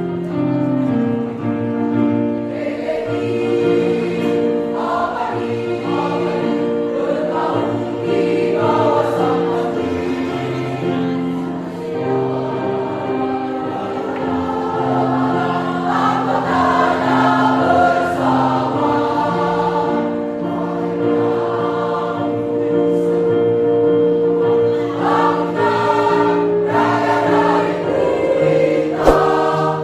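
A choir singing in harmony, with long held chords.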